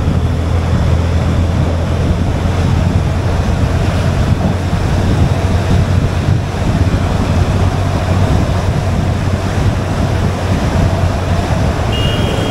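Wind buffeting an action camera's microphone on a moving vehicle, a loud steady rush heavy in the low end, with road noise from the drive underneath.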